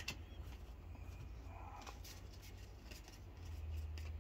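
Yu-Gi-Oh trading cards being flipped through and slid against each other by hand: light, scattered flicks and rustles, over a faint steady low hum.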